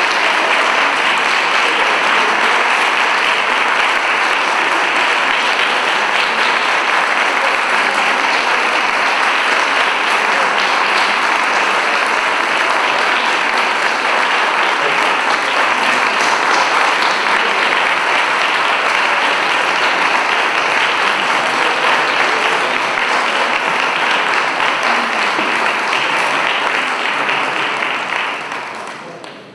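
Audience applauding, a dense steady clapping that dies away in the last second or two.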